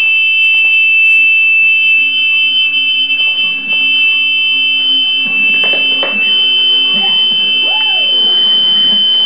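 Two lost-model alarm buzzers fitted to an RC plane sounding together during an alarm test: a loud, steady, high-pitched tone. One tone cuts off about eight seconds in and the other a second later.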